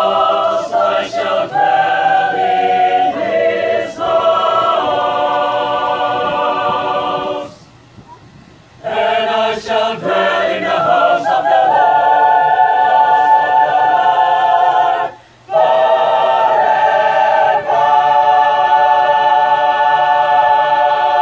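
Mixed choir of men and women singing a cappella in several parts. It breaks off for over a second about a third of the way in and again briefly later, and holds long chords toward the end.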